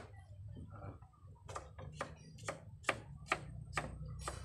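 Knife chopping a cucumber into small pieces on a wooden cutting board: a few light cuts, then about a second and a half in a steady run of sharp chops, about two to three a second.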